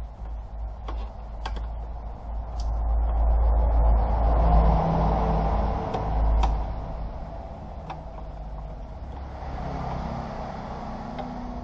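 Plastic trim creaking and rubbing as hands work at the cowl panel under the windshield, with a few sharp scattered clicks, over a steady low hum. The noise swells about four to seven seconds in.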